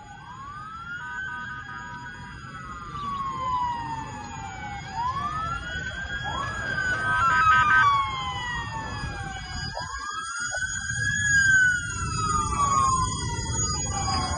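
Several emergency-vehicle sirens wailing at once, their rising-and-falling tones overlapping out of step and growing louder, over a low rumbling noise.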